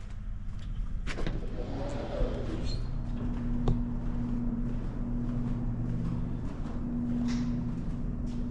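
A vehicle engine idling steadily, with a few sharp clicks and knocks over it.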